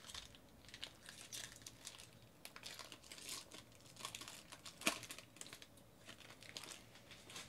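Foil wrapper of a trading-card pack being torn open and crinkled by hand: a run of crackles, with one sharper crackle about five seconds in.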